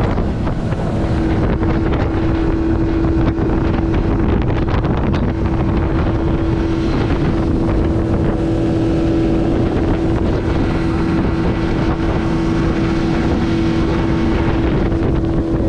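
Outboard motor on a rigid inflatable boat running at speed, a steady whine that holds one pitch, over water rushing past the hull and wind buffeting the microphone.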